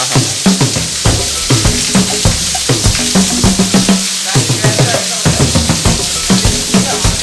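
Funky background music with a steady beat and a repeating bass line, over the steady rushing hiss of falling water from a waterfall.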